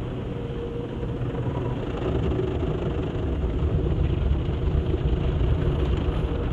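Automatic car wash heard from inside the car's cabin: a steady low rumble of the wash machinery and water and foam being sprayed over the car, gradually growing louder.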